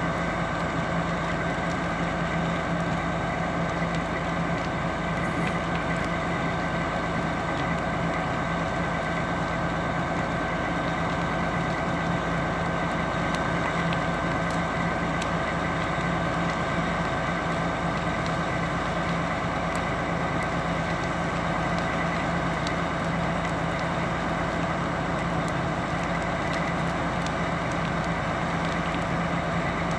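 Fire truck's engine running steadily with a constant hum, as it would when driving the pump, with scattered faint crackles and pops from the burning house.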